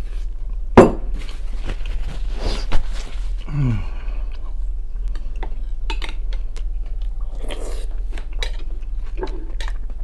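A fork clinking and knocking against glass bowls, with chewing between the strikes. Two sharp knocks, about a second in and near three seconds, are the loudest. A steady low hum runs underneath.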